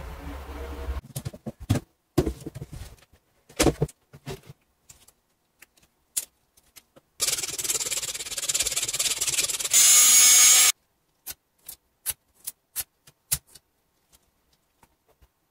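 Handling noise from the parts of a dismantled CD/DVD drive: scattered clicks and knocks of plastic and metal, then a few seconds of loud rubbing and rustling as gloved hands work the optical pickup sled, followed by a few more light clicks. A steady low hum is heard in the first second and cuts off.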